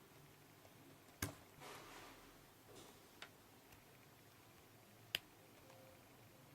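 Faint clicks of a USB-C cable plug being pushed into and pulled out of a phone's charging port, with a little handling rustle. The two sharpest clicks come about a second in and about five seconds in, with softer ones between. The cheap plug needs a little more pressure to seat and is harder to remove.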